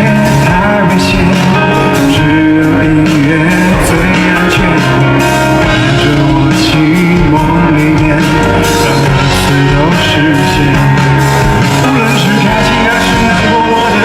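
Live rock band performance with a male vocalist singing over guitar, bass and drums, loud and unbroken.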